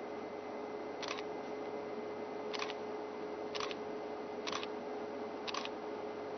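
Camera shutter firing single shots about once a second, six short double clicks, over a steady hiss and faint hum.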